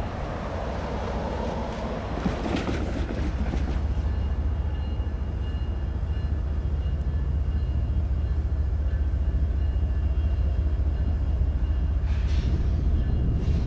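Union Pacific ES44AC and SD70M diesel-electric locomotives pulling a freight train away from a stop, their engines under throttle giving a steady low drone that grows a little louder over the first few seconds. A faint high steady whine rides over it.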